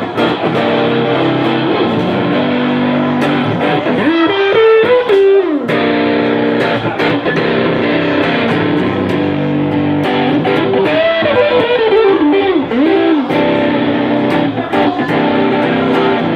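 Live rock-blues band playing an instrumental passage, an electric guitar taking the lead with notes that bend up and down in pitch twice.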